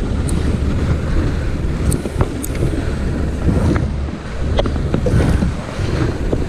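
Wind buffeting the microphone over choppy sea water, a steady low rumble with a few sharp clicks scattered through it.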